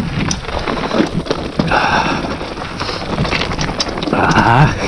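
Mountain bike rolling fast down a loose rocky trail: a continuous rattle and crunch of tyres on stones and clattering bike parts, with wind on the microphone. Two louder noisy surges come about two seconds in and near the end.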